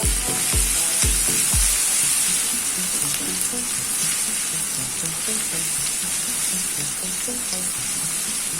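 Grated ginger and garlic sizzling in hot oil in a kadai, a steady high hiss. Background music plays over it, with low beats that stop about a second and a half in.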